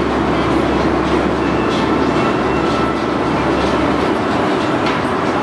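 Bobsled roller coaster cars running along their track with a steady rolling rumble that eases off about four and a half seconds in.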